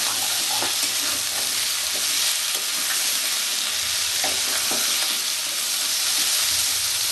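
Chunks of cauliflower, potato and papaya sizzling steadily in hot oil in a kadai while a metal spatula stirs them, scraping against the pan now and then, most sharply about four to five seconds in.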